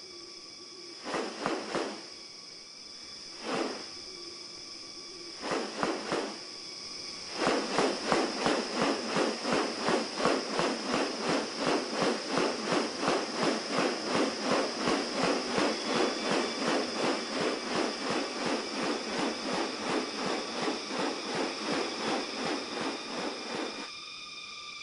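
Rainforest chorus: a steady high insect-like drone, with a few short rasping bursts, then from about seven seconds in a long even series of rasping pulses, about three a second.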